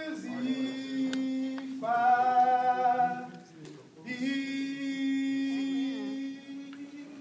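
A group of women singing slowly a cappella, in long held notes with short breaths between them.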